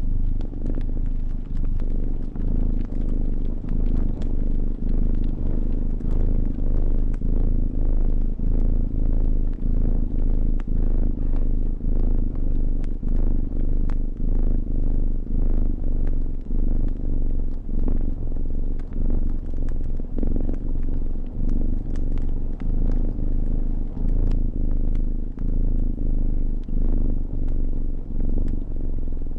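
A cat purring close up, a steady low purr that swells and dips with each breath about once a second. Scattered crackles from a fire pop throughout.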